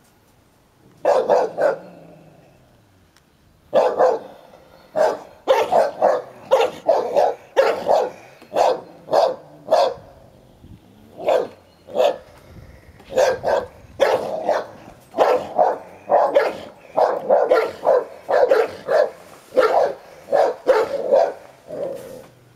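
Dog barking over and over in short barks, about two a second, with a gap of about two seconds after the first bark, as a young American Staffordshire terrier and an old Hovawart tussle over a toy.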